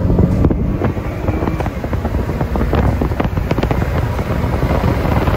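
Car moving quickly, heard from inside the cabin: steady engine, tyre and wind noise with scattered clicks and knocks.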